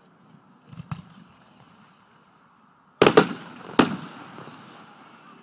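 Aerial firework shells bursting: one lighter bang about a second in, then a loud cluster of two or three bangs at about three seconds and another bang just before four seconds, each echoing away.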